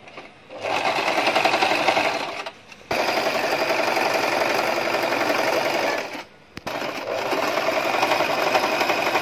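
Singer electric sewing machine stitching a hem on a trouser leg, running steadily in three spells with two short stops, about two and a half and six seconds in.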